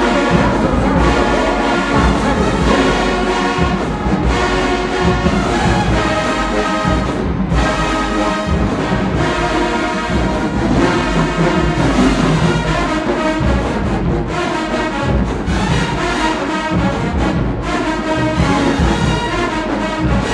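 Marching band playing loudly and steadily, massed brass over a pulsing low end of drums and sousaphones.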